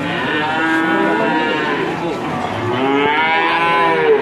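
A young bull calf mooing twice, two long drawn-out calls, the second starting about halfway through.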